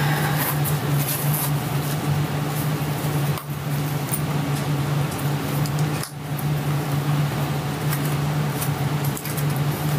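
Steady low hum and hiss of room tone from a police interview-room recording played back over courtroom speakers, with no one speaking. The sound dips briefly three times.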